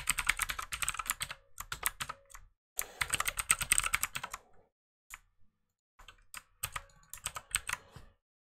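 Typing on a computer keyboard: two quick runs of keystrokes, a pause of about a second, then a few scattered key presses.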